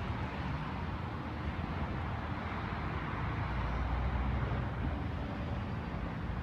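Steady urban street ambience of road traffic, with a low rumble that swells a little about halfway through.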